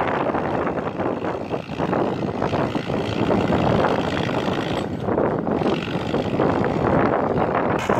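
Enter 444 tractor's diesel engine running under load while pulling a three-furrow plough, heard from a distance and mixed with wind on the microphone, its level swelling and dipping irregularly.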